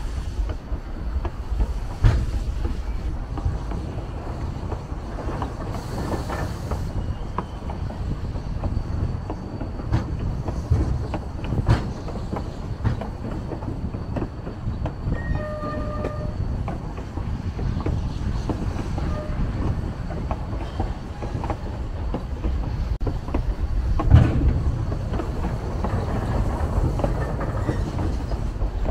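Narrow-gauge train running on the Durango and Silverton line: a steady low rumble with irregular clicks and knocks of wheels over rail joints. A brief faint high tone comes about halfway through.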